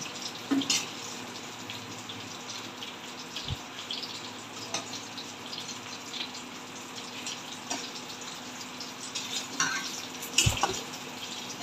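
Steady sizzle of fish frying in oil in a pan, with a few clinks and knocks of a metal ladle against the steel pot and plate as boiled bottle-gourd slices are scooped out.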